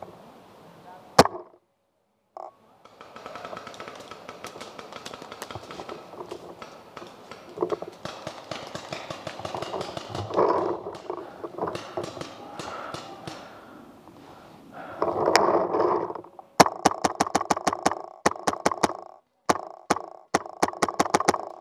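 Paintball marker firing: a single shot about a second in, then, after a stretch of rustling and scattered distant pops, rapid strings of shots in the last five seconds.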